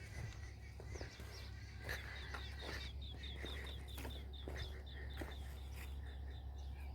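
Birds calling outdoors, one repeating a short, high chirp about four times a second for several seconds, with other scattered chirps over a low steady hum.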